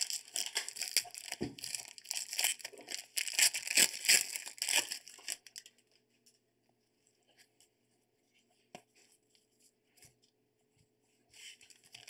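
Trading card pack wrapper being torn open and crinkled by gloved hands for about the first five seconds. Then it goes nearly quiet, with a few faint taps as the cards are handled, and the crinkling starts again near the end.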